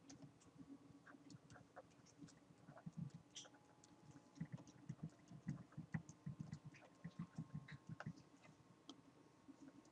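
Faint, irregular tapping and clicking of a stylus on a pen tablet as words are handwritten, with soft low thuds among the taps, growing busier about halfway through.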